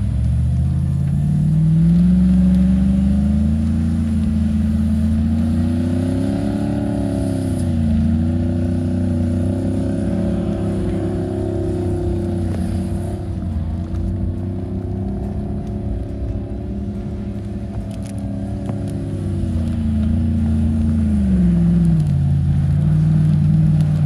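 Vehicle engines revving hard and holding high revs under load while a stuck box truck is towed out of deep snow by strap. The revs climb over the first two seconds, waver up and down, and drop back about 21 seconds in.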